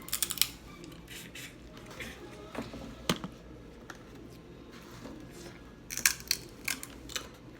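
Crab shells being cracked and snapped apart by hand: a quick cluster of sharp cracks at the start, a single snap about three seconds in, and another cluster of cracks about six seconds in.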